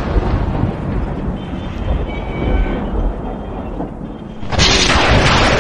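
Thunder-like rumbling sound effect marking a spirit being summoned, surging louder again near the end.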